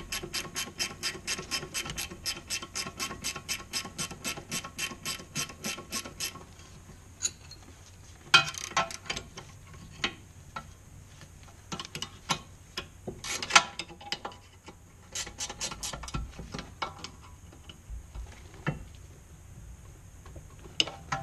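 Ratchet wrench clicking fast and evenly, about six clicks a second, while doing up a brake caliper slide bolt; the clicking stops about six seconds in. After that come scattered taps and a few sharp metal clinks of spanners against the caliper.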